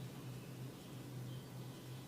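Steady low hum, with a couple of faint high chirps about halfway through.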